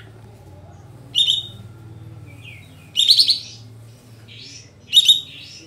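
A kapas tembak bulbul singing. Three loud, sharp phrases come about two seconds apart, with softer chirps between them.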